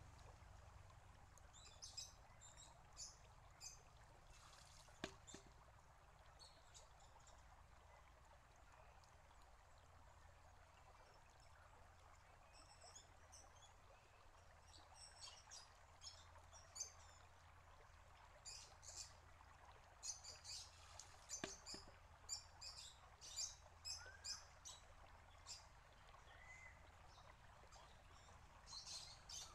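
Faint, steady bubbling and trickling of water welling up from a small stone bubbler fountain, with many short bird chirps, most of them in the second half. Two brief sharp knocks come about sixteen seconds apart, fitting the bamboo tube of a shishi-odoshi striking its rock.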